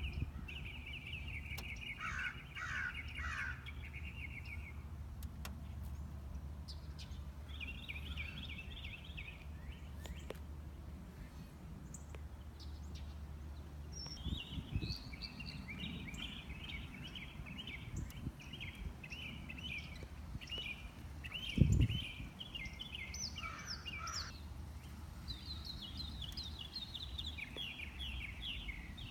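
Small birds chirping in several bouts of quick, repeated trills over a low, steady hum, with a single low thump about three-quarters of the way through.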